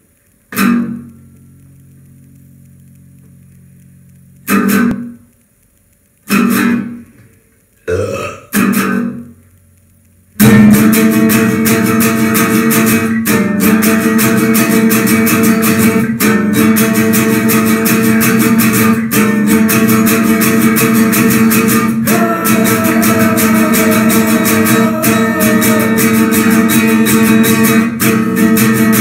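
Guitar music: about five separate strummed chords, each left to ring, over the first ten seconds. Then at about ten seconds the music comes in loud and full with steady strumming.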